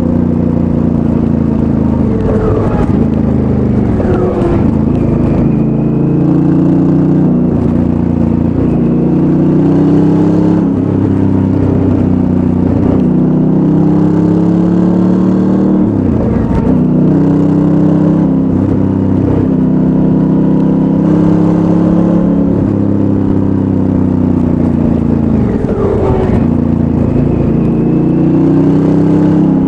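Honda Africa Twin's 998 cc parallel-twin engine through its stock exhaust under way, revs rising and falling as it accelerates and eases off, with several sharp drops and climbs in pitch.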